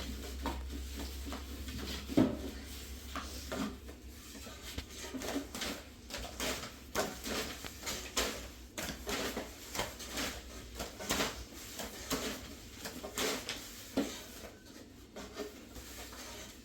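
Irregular knocks, clicks and rubbing of objects being handled, with one sharper knock about two seconds in. A low hum fades out over the first few seconds.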